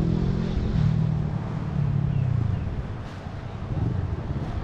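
An engine running at low revs, its pitch wavering up and down and easing off slightly about three seconds in.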